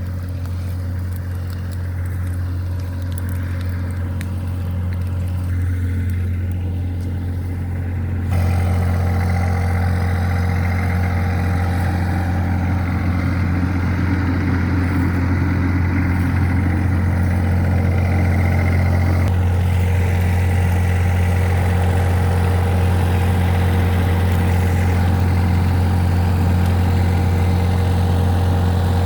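An engine running steadily at idle with an even low hum, getting a step louder about eight seconds in.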